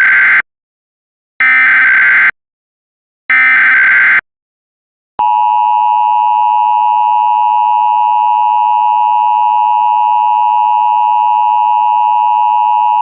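Emergency Alert System SAME header: three roughly one-second bursts of screechy digital data tones, the first cut short at the start, separated by about a second of silence. About five seconds in, the long steady EAS attention tone begins.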